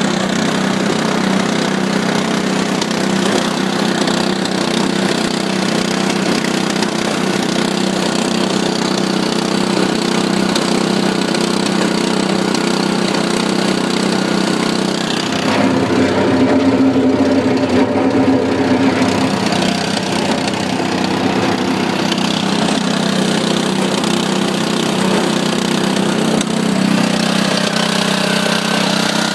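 The concrete mixer's 8 horsepower gasoline engine running steadily, growing a little louder and deeper for a few seconds about halfway through. The mixing blades inside are not turning, which the owner puts down to a sheared axle.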